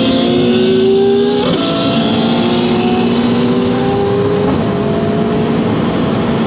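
Ferrari engine accelerating hard, heard from inside the cabin. The pitch climbs and falls back sharply at two upshifts, about one and a half and four and a half seconds in.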